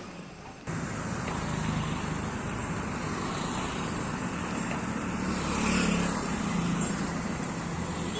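Steady motor-vehicle engine and traffic noise, cutting in abruptly just under a second in.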